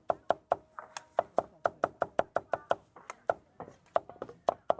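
Knife chopping on a wooden cutting board at a food stall: rapid, even strokes about five a second.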